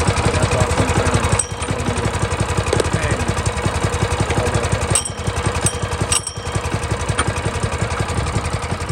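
Minibike's small single-cylinder four-stroke engine idling steadily, with a fast even pulse; the sound dips briefly a few times.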